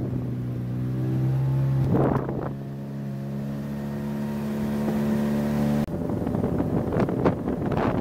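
Small boat's outboard motor running at a steady cruising speed, a constant drone, with wind blowing on the microphone. About six seconds in, the drone breaks off abruptly and gusty wind noise takes over.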